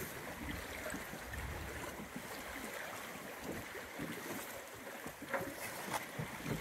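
Water washing along a sailboat's hull, with wind on the microphone, a steady moderate noise. There are a couple of faint knocks near the end.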